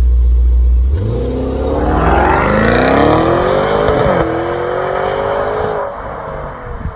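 Maserati Levante Trofeo's Ferrari-built 3.8-litre twin-turbo V8 accelerating hard away from a standstill. After a deep steady rumble lasting about a second, the engine note rises, dips briefly at an upshift about four seconds in, rises again, then fades as the car pulls away.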